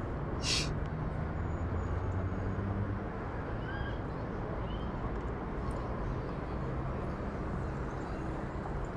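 Outdoor ambience: a steady low rumble and hiss, with a few faint bird chirps and a brief hiss about half a second in.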